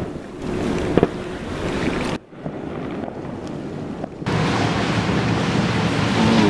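Wind rushing on the microphone outdoors, with a sharp pop about a second in. After a cut past the middle, the rush comes back louder with a steady low hum under it.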